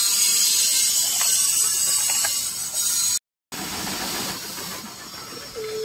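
Steady hiss of outdoor background noise with a few faint clicks, cut by a brief silent gap about three seconds in; a short pitched call starts right at the end.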